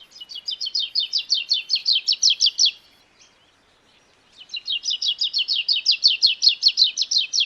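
Sri Lanka white-eye calling: a fast, even run of high, short notes, about eight a second, in two bouts with a pause of about a second and a half between them.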